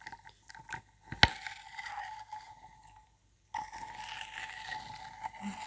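Metal spoon clinking and scraping against a ceramic bowl while stirring a thin, watery mixture, with one sharp, loud clink about a second in.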